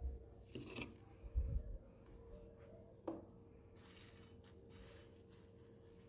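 Old wooden door pushed open by hand: a few dull knocks in the first two seconds and a short squeak about three seconds in, over a faint steady hum.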